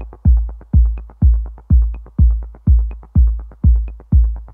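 Electronic dance music with a heavy kick drum beating steadily about twice a second and light ticking percussion between the beats.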